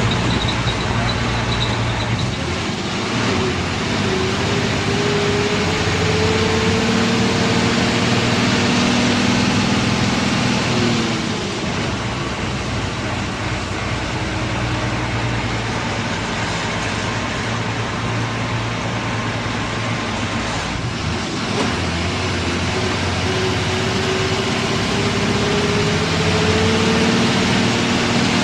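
A KSRTC bus running on the road, with engine and road noise. The engine's pitch rises slowly as it pulls through a gear, drops sharply about a third of the way in, and climbs again in the last quarter.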